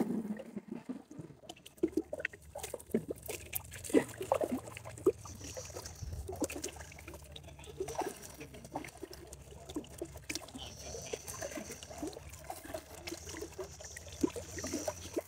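Soft sloshing and small, irregular splashes of shallow river water as dogs swim and wade.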